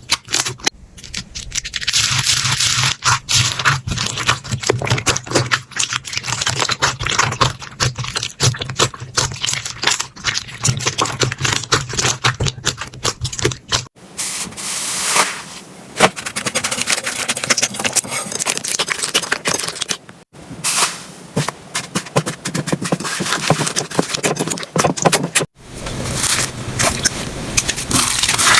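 Slime being squeezed, poked and pressed by hand: a dense run of crackling clicks and pops. The sound changes abruptly a few times as one slime gives way to the next.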